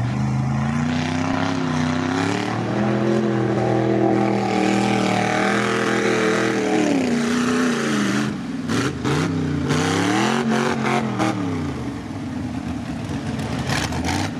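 Mud truck's engine revving hard as it plows through a mud pit, the pitch climbing and holding high, dropping about seven seconds in, rising again briefly around ten seconds and then falling off. Heavy splashes of mud and water crack through between about eight and eleven seconds in.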